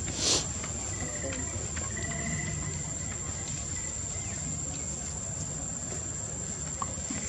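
Steady high-pitched insect drone, like crickets, over an even outdoor background hiss, with a brief rustling swish just after the start.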